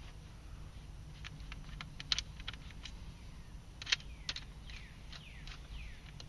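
Small screws being driven into the plastic heater/AC control plate: scattered light clicks and taps of tool and screw on plastic, then a few short falling squeaks near the end, over a low steady hum.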